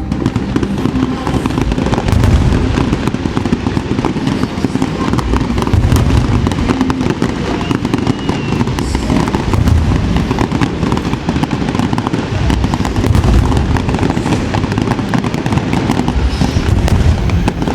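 Aerial fireworks going off continuously: a dense stream of crackling bursts over repeated low thuds from the shells.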